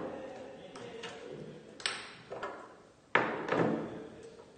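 A handful of sharp knocks and light clinks as a hand-held pharmacy balance and its small metal weights are handled and set down on the table, the loudest about three seconds in.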